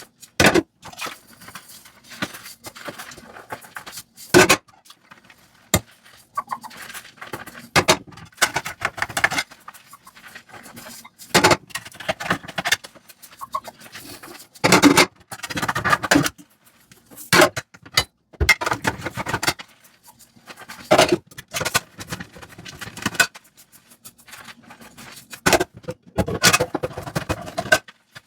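Dishes being washed by hand: irregular clinks and knocks of crockery and utensils against each other, with stretches of scraping and scrubbing a second or two long.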